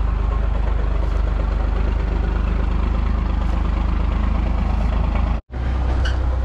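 First-generation Cummins 12-valve inline-six turbo diesel idling steadily with a low, even throb. It breaks off suddenly about five and a half seconds in.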